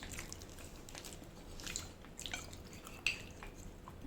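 Close-up wet chewing and lip-smacking of a person eating, a scattered series of soft mouth clicks with a few sharper smacks.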